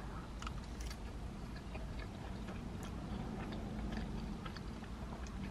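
A person chewing a mouthful of rigatoni pasta close to the microphone: quiet mouth sounds with faint, scattered small clicks.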